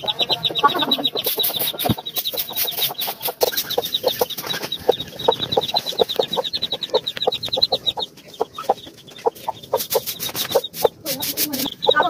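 Hen clucking in a steady run of short, low clucks, with a chick's high, rapid cheeping over it that stops about eight seconds in.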